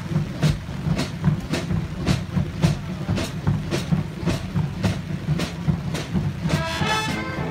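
Marching band drum section playing a steady cadence, about two strokes a second, with deep drums and sharp high hits on the beat. The brass comes in near the end.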